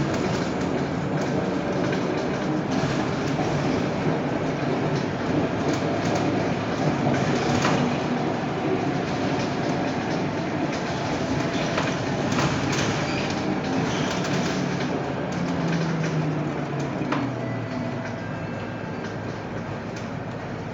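Inside a 2009 Scania K230UB Euro 5 single-deck bus under way: its five-cylinder diesel engine and road noise, with sharp rattles from the body and fittings now and then. The bus gets quieter over the last few seconds as it eases off.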